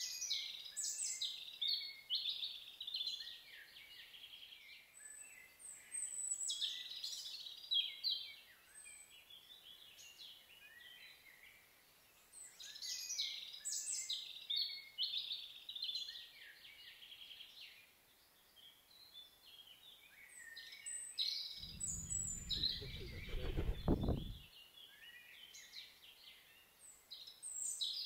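Songbirds singing outdoors in short, bright, repeated phrases a few seconds apart. About two-thirds of the way through, a low rumble joins for about three seconds.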